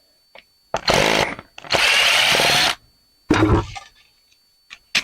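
Handheld power drill/driver whirring in three bursts: a short one about a second in, a longer one of about a second just after, and a short one a little past three seconds. A few light clicks follow near the end.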